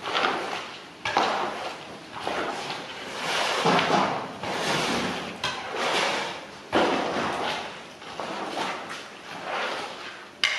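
A long-handled spatula scraping and turning beef chunks with onions frying in a large steel cauldron, in strokes every second or two over a steady sizzle.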